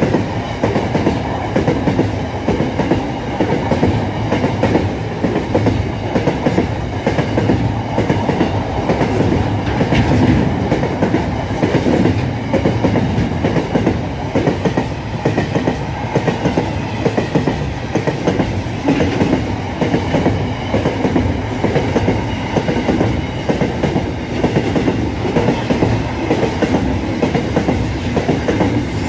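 Freight train of open wagons passing at speed, its wheels clattering over the rail joints in a fast, steady rhythm with a continuous loud rumble.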